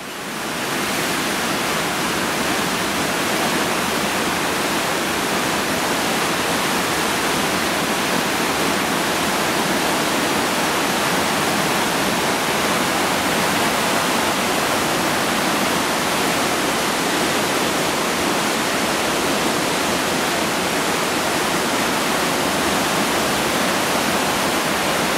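Floodwater pouring over a river weir, a river in spate after heavy rain: a steady, loud rush of white water that comes up to full level within the first second.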